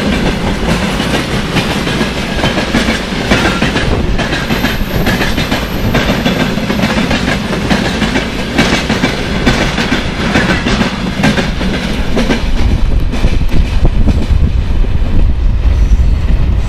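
Freight train tank cars rolling past close by, their wheels clattering steadily over the rail joints. Near the end the last cars pull away, the clatter fades, and wind buffeting the microphone takes over.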